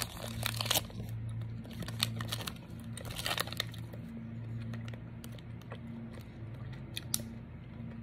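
Plastic fruit-snack pouch crinkling in the hand several times: near the start, about two seconds in and again about three seconds in, with a few light clicks later. A low hum runs underneath.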